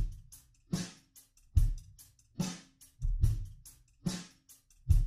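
Background music: a slow, steady drum beat, with bass drum and snare alternating about every 0.8 seconds and hi-hat ticks between them.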